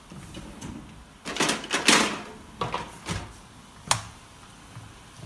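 Handling noise of kitchen things: a cluster of knocks, clicks and rustles about one and a half to two seconds in, then a few single sharp clicks, the last near the end as a spatula is worked in a plastic tray of raw chicken mince.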